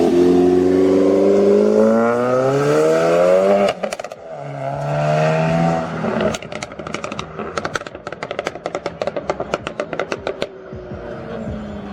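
A modified car's engine revving, its pitch climbing for several seconds, breaking off about four seconds in, then climbing again briefly. As the throttle closes, the exhaust lets out a rapid string of pops and crackles for about four seconds before the engine settles to a quieter, steady running.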